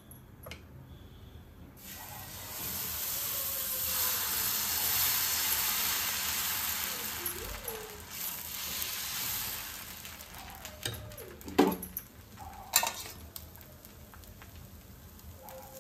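Dosa batter sizzling on a hot griddle as it is poured and spread in circles with a ladle. The hiss starts about two seconds in, is loudest in the middle, then dies down as the dosa sets. Two sharp knocks come near the end.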